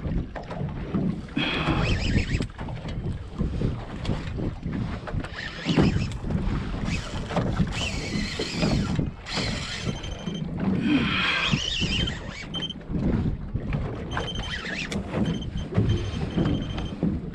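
Wind buffeting the microphone on a small fishing boat at sea, with water sloshing against the hull in bursts every few seconds. Faint short high-pitched tones come and go in the second half.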